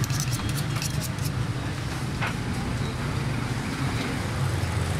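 Steady low rumble of road traffic, with a quick run of sharp clicks in the first second or so from knives working on a wooden chopping block.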